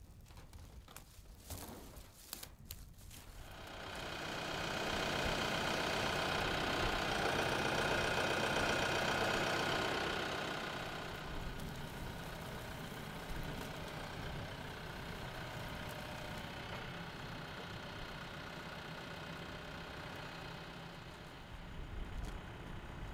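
TYM T654 tractor's diesel engine running. It comes in a few seconds in, is at its loudest for several seconds, then settles to a steadier, quieter run.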